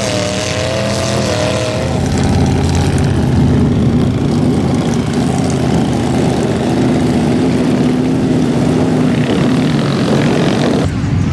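Engine of an off-road vehicle running steadily as it drives through mud.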